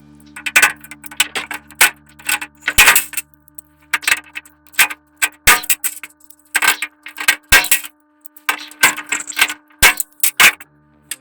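Hand pop-rivet gun fastening a power strip into a steel toolbox drawer: a run of sharp metallic clicks and clanks in irregular clusters as the handle is worked and the rivet mandrels snap.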